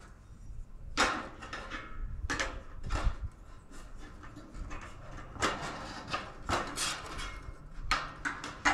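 Hidden gutter hangers being fitted into a galvanized steel gutter with pliers: an irregular string of sharp metal clicks and knocks, about eight in all.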